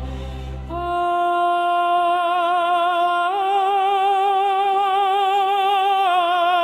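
Wordless sung music: a single voice with vibrato holding long, sustained notes, stepping up a little about three seconds in and back down near the end. A low drone underneath drops out about a second in.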